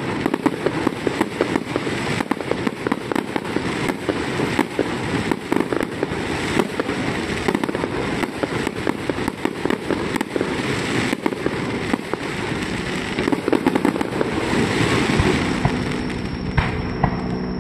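Fireworks display: a rapid, continuous barrage of bangs and crackling from shells bursting overhead, swelling louder for a moment near the end.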